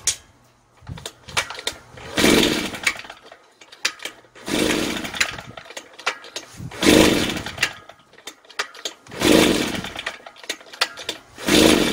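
Five pulls on the recoil starter of a Shindaiwa EB803 blower's two-stroke engine, about every two and a half seconds, each one a brief whirring crank. The engine turns over without firing or catching: a no-start, with spark present at the plug.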